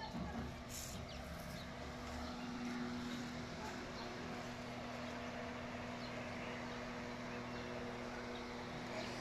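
Steady low mechanical hum, as from a running engine or motor, over outdoor background noise.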